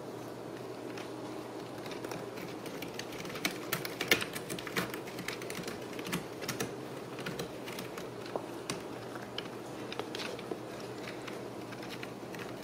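Cats' claws clicking and scratching on corrugated cardboard scratchers: an irregular run of sharp ticks, busiest about three to five seconds in, over a steady low room hum.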